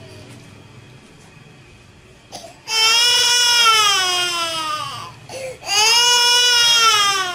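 A baby crying: after a quiet couple of seconds and a short sob, two long high-pitched wails, each held and then falling in pitch at its end.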